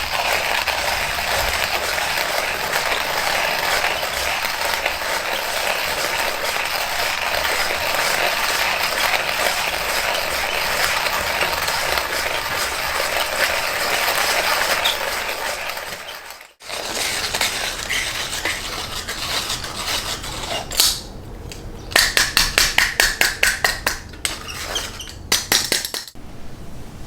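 Hand-cranked coffee grinder grinding beans steadily. It stops suddenly about sixteen seconds in, then light clatter and a quick run of about a dozen clicks follow.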